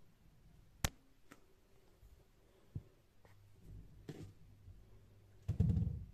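A ball knocking and rolling on a wood-effect floor: one sharp knock about a second in, a few fainter taps, then a cluster of quick knocks with a low rumble near the end as it comes to rest against the skirting board.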